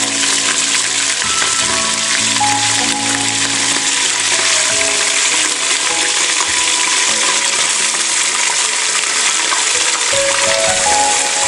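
Mutton pieces sizzling steadily in hot oil in a pressure cooker pan, stirred with a wooden spatula.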